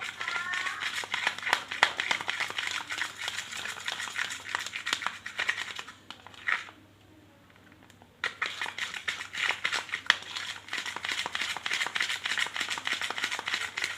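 Spatula stirring a sticky glue-based slime mixture in a container: fast, dense sticky clicking and crackling. It stops for about a second and a half around the middle, then starts again.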